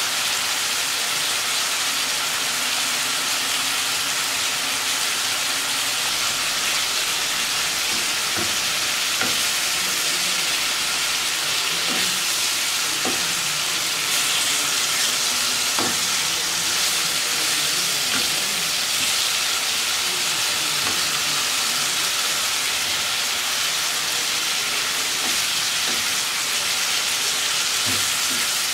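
Beef liver with sweet peppers and onions sizzling steadily in a frying pan. After the first several seconds, a wooden spatula stirring the pan adds scattered scrapes and light knocks.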